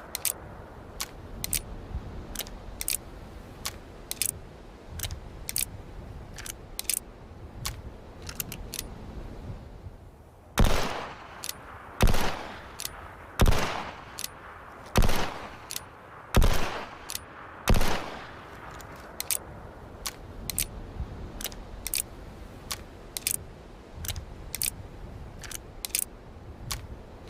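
Single-action revolver: a run of small metallic clicks from the action, then six loud shots about a second and a half apart, then more clicking.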